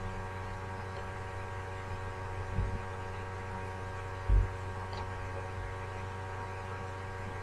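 Steady electrical hum with a faint buzz of fixed tones. Two dull low thumps come about two and a half and four and a half seconds in, the second louder.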